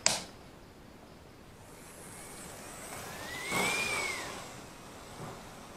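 A sharp click at the start, then a model railway locomotive's small electric motor whirring as it runs past on the track, its whine rising and then falling in pitch and loudness, loudest about three and a half seconds in.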